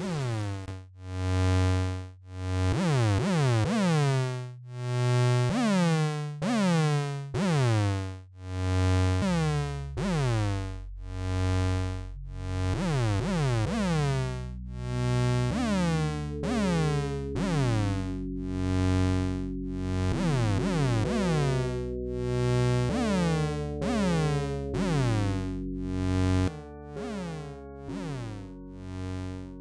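Sinus Plus 2.0 organ virtual instrument playing sustained chords that change every second or so, each with a bright attack. A low bass line comes in about nine seconds in.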